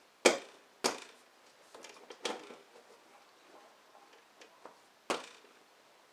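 Sharp knocks and clicks of a motorcycle seat being worked into place on the bike's frame: four louder knocks, about a quarter second in, near one second, a little after two seconds and about five seconds in, with fainter taps between.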